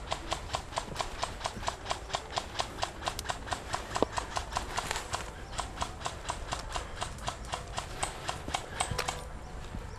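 Airsoft gun firing a long steady string of shots, about five or six a second, as sharp clicks, stopping about nine seconds in. One shot near four seconds is louder than the rest.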